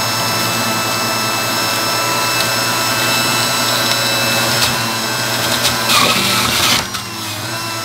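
Breville Commercial Juice Fountain XL Pro juicer motor running steadily, a steady high whine over a rushing hum, with a brief louder hiss about six seconds in.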